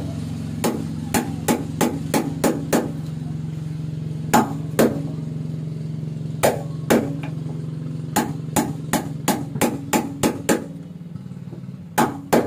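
Hammer blows on a chisel cutting into a wooden boat's engine bed. The blows come in short runs of about three a second, with pauses between them. A steady low hum sits underneath and fades near the end.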